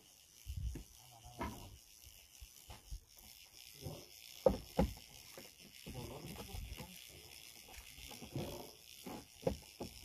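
Spinning reel being cranked to wind in a hooked fish from deep water, its gears whirring, with scattered knocks and rubbing from the rod and handle; two sharper clicks about halfway through.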